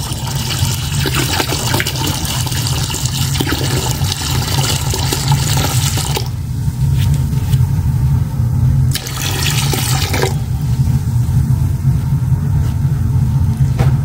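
About a litre of vinegar poured from a bottle into a tub of hot soapy water, a steady splashing stream. The splashing thins out about six seconds in and briefly picks up again near the tenth second.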